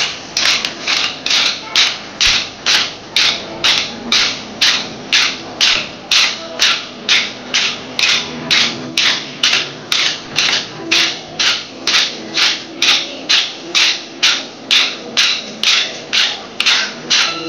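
Wooden kolatam sticks clacking together in unison as a group dances the kolatam stick dance, a steady even beat of about two and a half strikes a second.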